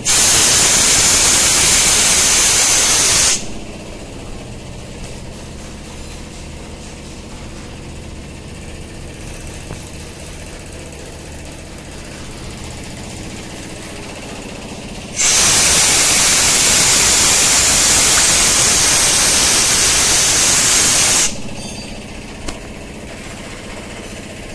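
Car lift being lowered: two loud bursts of compressed-air hiss from the lift's release valve, the first about three seconds long and the second about six, each starting and cutting off suddenly. A steady low hum runs underneath, and a single click comes near the end.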